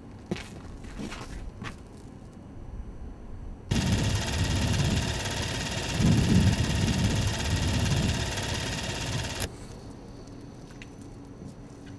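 Super 8 film mechanism running with a rapid mechanical rattle. The rattle grows much louder a few seconds in and drops back down about two and a half seconds before the end.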